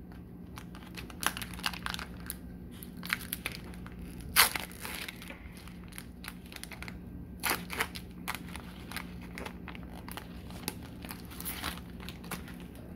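Foil wrapper of a Pokémon trading card booster pack being torn open and crinkled by hand, in irregular crackles, the loudest about four seconds in.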